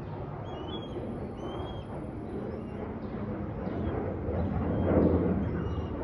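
Low, steady rumble of a jet airliner cruising high overhead, with a brief louder swell about five seconds in. Small birds chirp repeatedly above the rumble.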